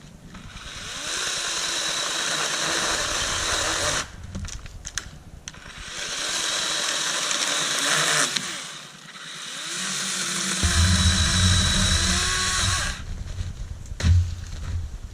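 Dewalt DCCS620B 12-inch 20V battery chainsaw running in three bursts of about three seconds each, its whine rising as the trigger is pulled and falling away on release. A thump about fourteen seconds in.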